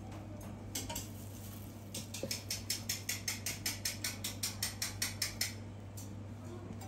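Cleaver slicing a radish thinly on a plastic cutting board. After a few single knocks, a quick, even run of blade-on-board knocks starts about two seconds in, about five a second, and lasts a few seconds.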